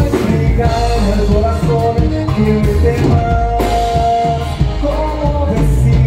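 Live norteño band playing: a sung melody over bass and drums, loud and continuous.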